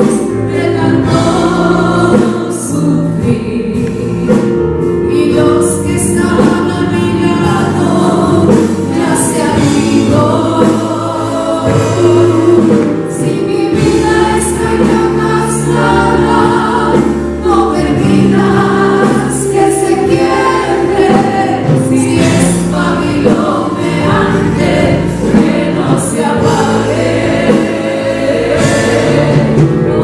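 Live Christian worship song: women singing into microphones, a lead voice with backing singers, over a band with guitar.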